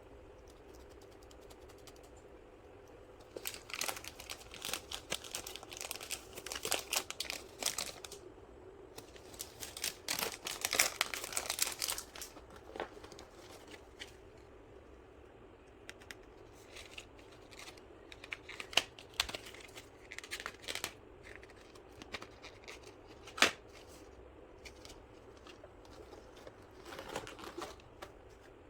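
Stationery kit packaging crinkling and tearing as it is opened by hand, in bursts, with scattered small clicks between them and one sharp click late on.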